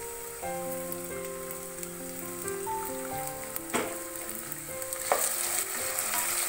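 Diced potato, carrot and green chillies sizzling in hot oil in a non-stick pan, sautéing. A wooden spatula knocks and scrapes against the pan a couple of times in the second half.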